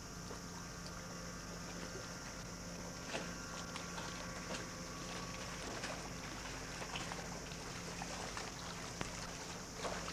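Boat engine running at a steady hum, heard over constant tape hiss, with scattered small clicks and splashes.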